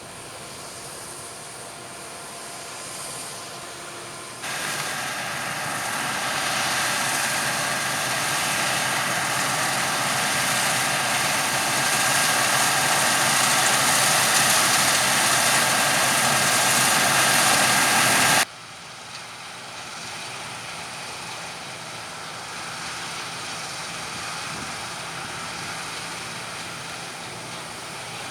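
Harvest machinery running steadily in three shots that cut abruptly about four seconds in and after eighteen seconds. The middle shot is loudest: a broad rushing machine noise with a steady whine, growing louder as the machine nears.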